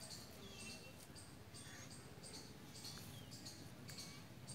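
Faint chirping of insects and birds: short high chirps repeating about once a second, with a few brief falling whistles.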